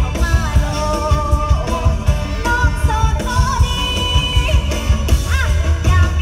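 Live Isan mor lam band music played loud through a PA sound system: a singer's voice over a heavy, steady bass beat.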